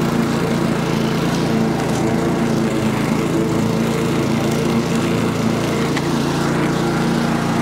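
Honda engine of a Husqvarna rotary lawn mower running steadily at full throttle while cutting grass and mulching leaves, holding an even speed without over-revving.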